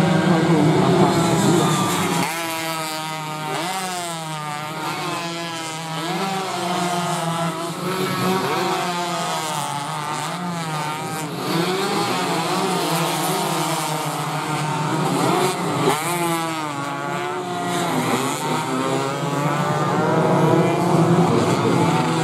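Several 125 cc two-stroke underbone racing motorcycles being ridden hard as a close pack, their engines rising and falling in pitch over and over with throttle and gear changes through the corners.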